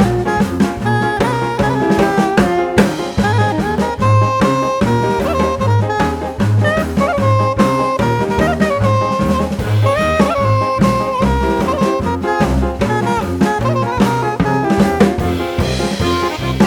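Jazz music with a horn melody over a steady beat of bass and drums.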